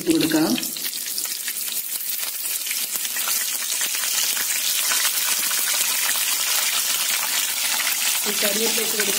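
Hot oil sizzling and crackling steadily in a pan as curry leaves and green chillies fry in it, with pieces of chilli-marinated fish being laid into the oil near the end.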